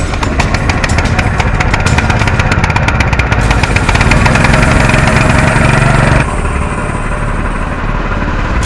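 Small air-cooled petrol engine of a portable pump unit running close up, its firing an even rapid beat. About six seconds in it stops abruptly, giving way to a quieter, lower engine hum.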